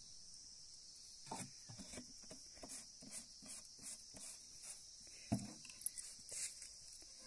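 A steady, high insect drone, like crickets, with a run of soft knocks about three a second from about a second in to past six seconds, the loudest near five and a half seconds.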